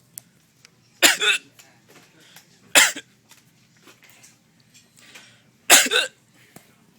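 A man coughing while he has the hiccups, the cough and hiccup coming together: three loud short bursts about a second, three seconds and six seconds in, the first and last each split into two quick catches.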